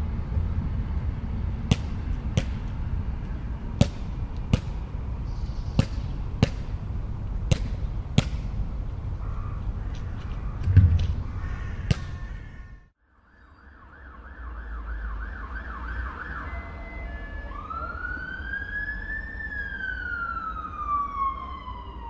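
City street ambience: a steady low traffic rumble with a series of sharp clicks, fading out about halfway through. Then an emergency vehicle siren: first a fast yelp, then a slow wail that rises and then falls in pitch.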